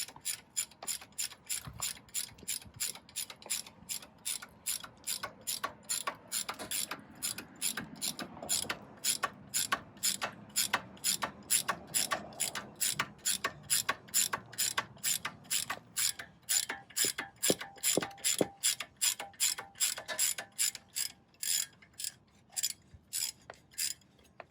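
Hand ratchet wrench clicking steadily, about three clicks a second, as the brake caliper bracket bolts are worked loose; the clicking stops near the end.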